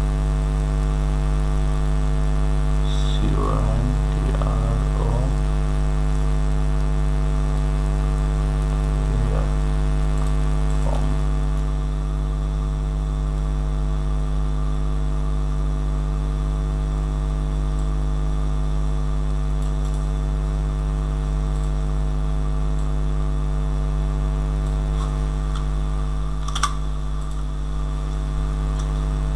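Steady electrical mains hum with a stack of overtones, picked up by the recording, loud and unchanging throughout. A single sharp click sounds near the end.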